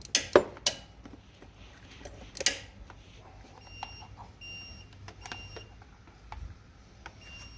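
A few sharp clicks, then a Ryobi battery-electric riding mower's warning beeper, switched on with the key, sounding a short high electronic beep over and over, about one beep every 0.8 seconds.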